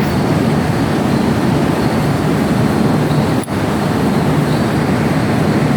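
Metal lathe running with a loud, steady mechanical rumble, broken by a momentary dip about three and a half seconds in.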